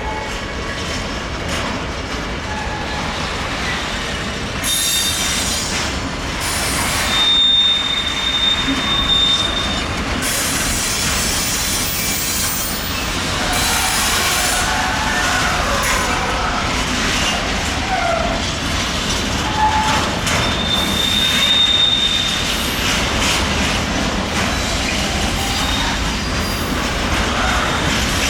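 Combined-transport freight train rolling out with its wheels squealing on the rails, over a steady rumble and clatter of wagons. Two long, high squeals stand out, one about a third of the way in and another near three quarters.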